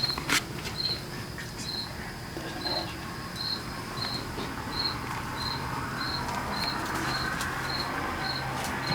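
A cricket chirping steadily, short high chirps repeating about one and a half times a second, over a low steady hum and a few scattered clicks.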